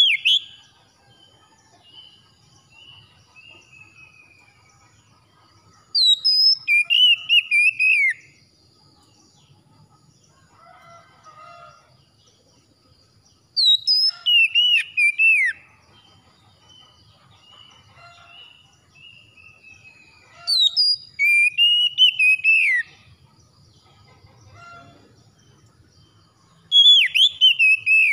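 Oriental magpie-robin singing loud, whistled song phrases with quick rising and falling notes. Each phrase lasts about two seconds and a new one comes about every seven seconds, four times, with only soft notes in between.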